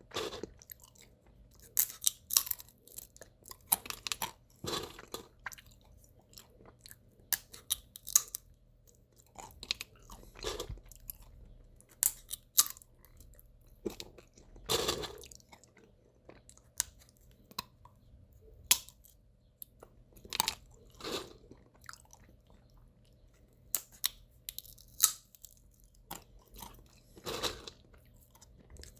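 Sunflower seeds in the shell being cracked between the teeth and chewed: sharp, irregular cracks of the husks, with a heavier crunch every few seconds.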